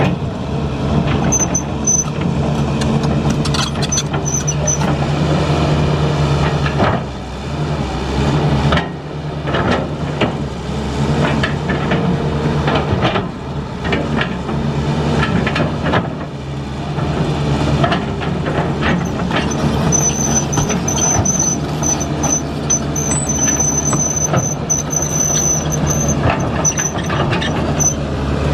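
Diesel engine of heavy construction machinery running steadily under many metallic clanks and knocks. A thin, high-pitched squeal comes and goes near the start and again in the last third.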